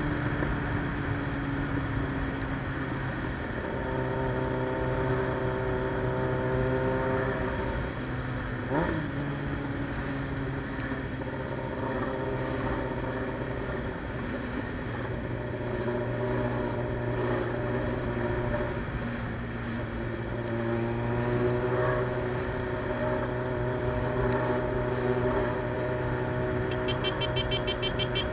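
Suzuki Bandit 600's carbureted inline-four running through a straight-pipe exhaust while under way in traffic, its engine note holding steady for stretches and shifting in pitch as the speed changes.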